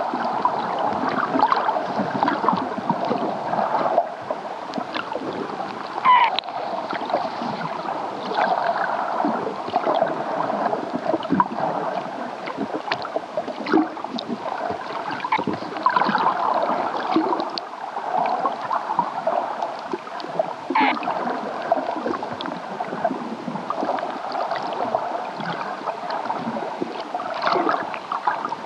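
Hydrophone recording of an unidentified underwater source, played over loudspeakers: a dense, continuous run of short cawing calls with scattered sharp clicks. The sound is clearly underwater and fairly close to the hydrophones, but marine researchers consulted could not say what makes it.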